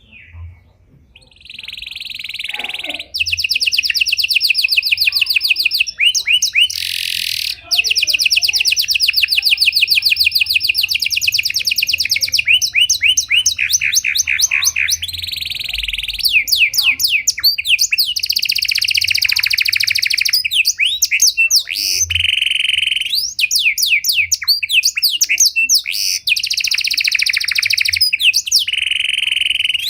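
Pied domestic canary singing a long, varied song: fast rolling trills of rapidly repeated notes that switch to a new phrase every few seconds. The song starts about a second in, has brief breaks, and cuts off suddenly at the end.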